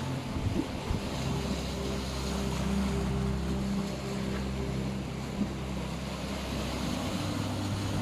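Sea waves washing and breaking over a rocky shore, a steady rush of surf, with soft sustained low tones of ambient meditation music underneath.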